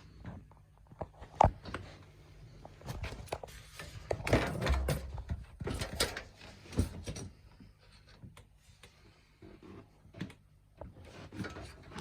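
Irregular knocks, clicks and clatter of objects being handled and set down in a small room, with a strong burst of clatter a few seconds in.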